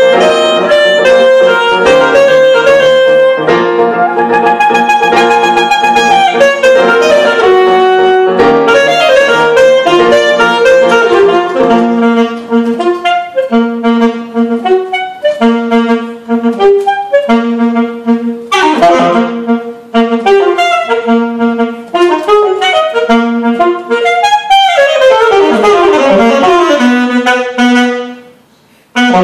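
Alto saxophone with piano accompaniment playing a contemporary concert piece. It opens on long held notes, moves into a repeated figure of short notes, and has two fast falling runs. The music breaks off briefly just before the end.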